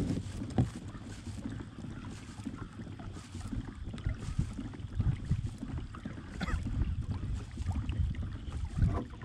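Kayak moving through water while trolling: water sloshing against the hull and wind rumbling on the microphone, with a few thumps.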